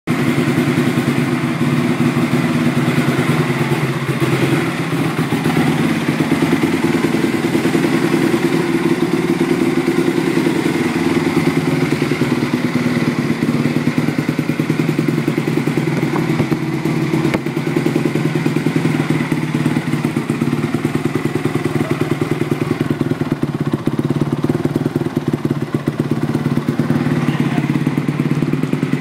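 A 2006 Honda CRF250R's single-cylinder four-stroke engine, bored out to 280cc, idling steadily with a fast, even exhaust pulse.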